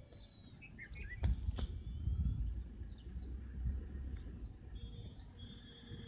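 Bulbul calling in short chirping notes over a low background rumble, with a sharp knock about a second in and a steady high tone joining near the end.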